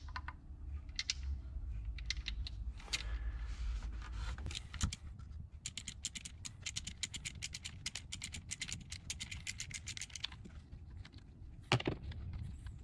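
A 10 mm socket ratchet backing a nut off an engine's alternator cover: scattered clicks at first, then a fast run of ratchet clicking for several seconds in the middle, with a louder knock of the tool near the end.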